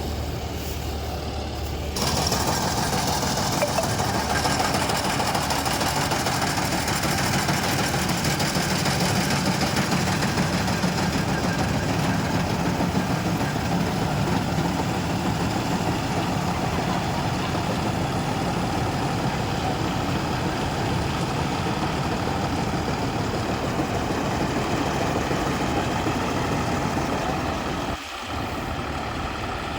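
John Deere harvester's diesel engine running steadily, stepping up louder and fuller about two seconds in, with a brief drop near the end.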